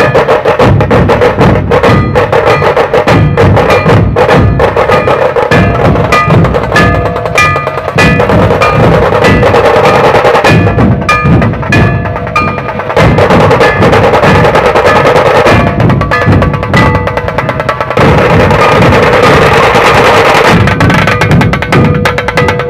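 Dhol-tasha ensemble playing: many dhol barrel drums and tashas beaten together in a loud, fast, dense rhythm.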